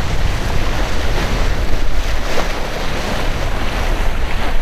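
Wind buffeting the microphone with a steady low rumble, over water rushing along the hull of a sailing yacht under way.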